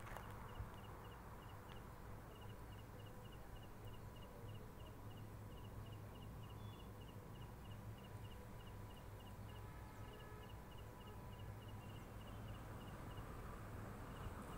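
Faint outdoor background hum with a steady train of short, high chirps, about four a second, that pauses briefly twice.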